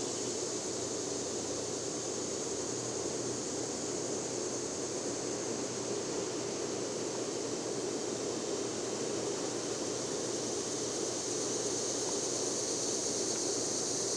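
52-inch Moss Tropical Breeze Deluxe ceiling fan running on its high setting: a steady rush of air from the cane blades over a faint low motor hum. It grows a little louder near the end.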